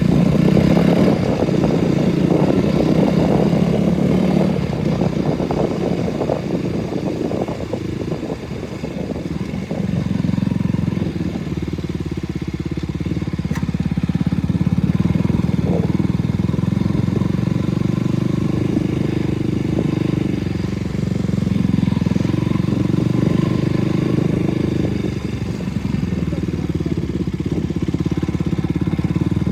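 KTM RC 200's single-cylinder engine running under way at fairly steady revs. Its note is rougher and louder for the first several seconds, eases briefly, then settles back to a steady drone.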